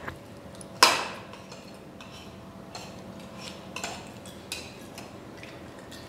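Tableware clinking: one sharp clink with a short ring about a second in, then a few faint taps of dishes and cutlery over low room noise with a faint steady hum.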